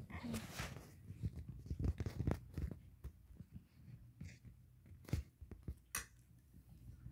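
Irregular clicks, taps and rustles of handling noise, loudest about two seconds in, with sharp clicks near the end.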